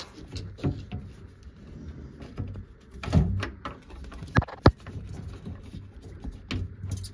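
Handling noises while a rubber drain hose and its clamp are fitted back onto a washing machine drain pump: scattered knocks and plastic and metal clicks, with a dull thud about three seconds in and two sharp clicks in quick succession about a second later.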